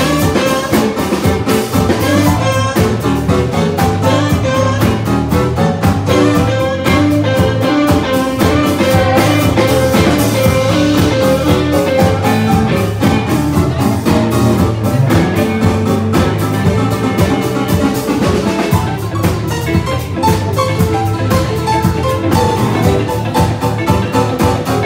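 Live band playing music with a steady beat.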